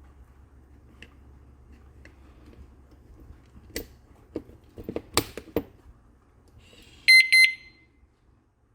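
Alarm padlock: several sharp clicks and knocks as the lock is handled, then its alarm gives a short, loud, high-pitched beep in two quick pulses near the end.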